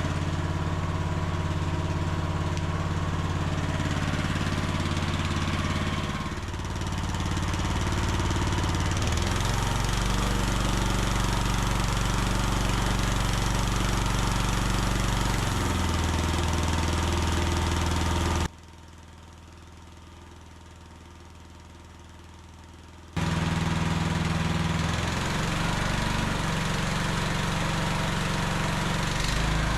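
Small gasoline engine of an AGT QH12R mini excavator running steadily, its note shifting a few times, left to burn off the last of its fuel before winter storage. The sound drops away sharply for about five seconds past the middle, then the engine is heard again.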